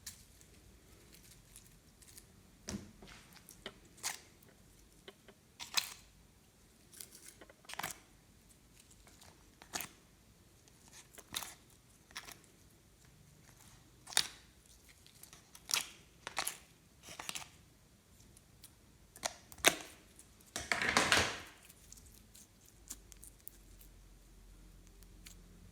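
Glossy slime being squished and stretched by hand, giving short sticky pops and clicks at an uneven pace, with a longer, louder crackling squish a little after 20 seconds.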